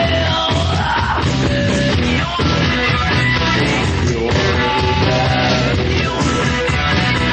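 Loud rock music with a yelled vocal, playing without a break.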